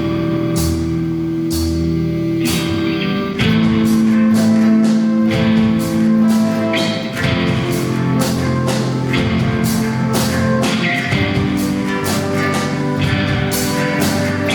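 Live band playing an instrumental rock piece, with guitar, keyboard and drum kit. Held chords with sparse cymbal hits open it; about three and a half seconds in the drums come in with a steady beat and the sound gets fuller and louder.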